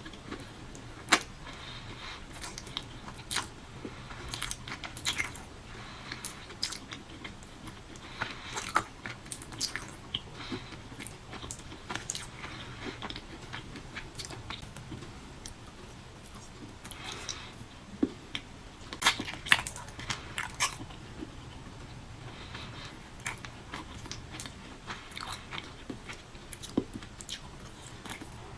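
A person eating fruit close to the microphone: irregular wet chewing, biting and mouth clicks and smacks throughout, with a few sharper smacks.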